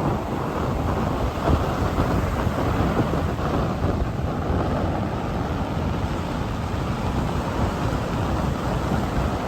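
Strong gale-force wind buffeting the microphone: a loud, continuous rush that surges and eases without letting up.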